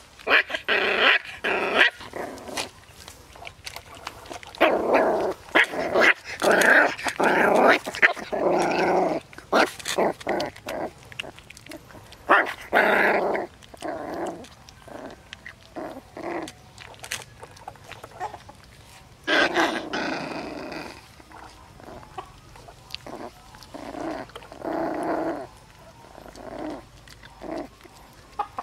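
Puppies growling in repeated bouts of a second or more while eating together from one plate of rice, with chewing and small clicks in between.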